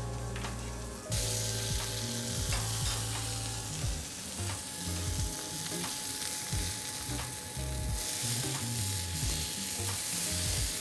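Beef tenderloin sizzling as it sears in a hot black steel frying pan, a steady hiss that steps louder about a second in, with a few light clicks of the pan.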